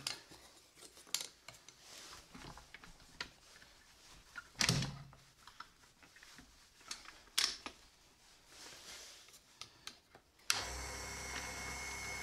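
A few sharp knocks and clicks as a wooden block and parts are handled on a metal drill-press table; about ten seconds in, the small bench drill press's motor switches on and runs steadily.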